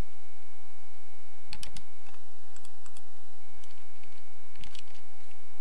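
Clicks of a computer mouse and keyboard, in short clusters about a second and a half in, near three seconds, and near five seconds, over a faint steady hum.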